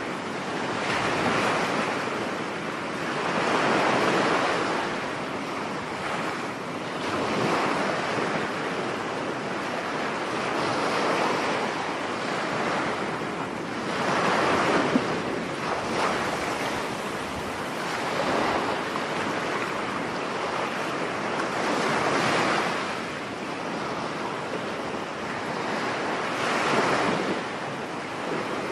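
Rough surf breaking on a beach during a storm: waves surge and wash in every few seconds over a constant rush of wind, with some wind buffeting on the microphone.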